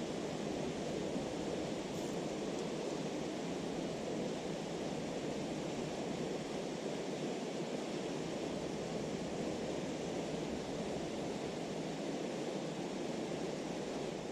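Mountain stream rushing steadily: a continuous, even wash of flowing water.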